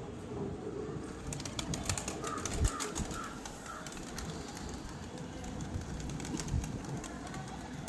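Domestic pigeons cooing, with a run of sharp clicks in the first half and one low thump about two and a half seconds in.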